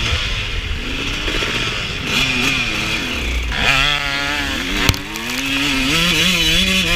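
Suzuki RM125 two-stroke dirt bike engine revving up and down as the throttle is worked, the pitch climbing sharply around the middle and swinging again near the end. A single sharp knock is heard about five seconds in.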